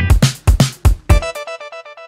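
Background music with a strong beat that stops about one and a half seconds in, leaving a repeated pattern of notes that fades away like an echo.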